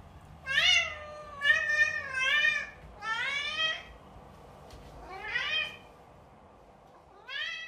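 A cat meowing repeatedly: about six short calls, each rising then falling in pitch, with gaps between them.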